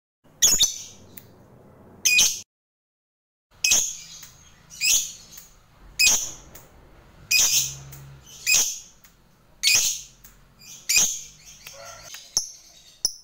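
Lovebird calling: a series of about ten short, sharp, high-pitched calls, roughly one a second.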